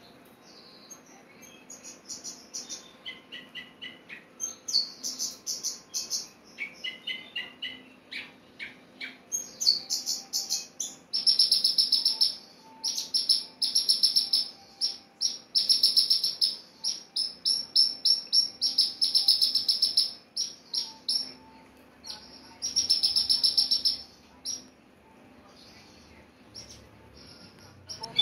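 Javan bush lark (branjangan) singing: quick strings of short, high chirps and trills that grow louder and denser about ten seconds in, then die away near the end.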